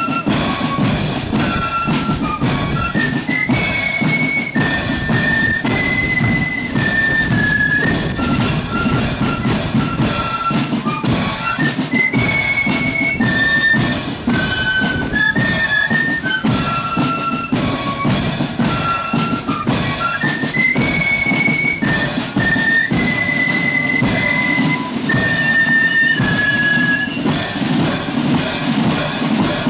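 Marching flute band playing a tune on flutes together, the melody moving in held notes, over a steady marching beat of bass and snare drums.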